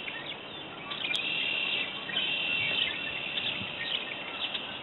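Red-winged blackbirds singing, several trilled songs overlapping, loudest from about one to three seconds in. A single sharp click about a second in.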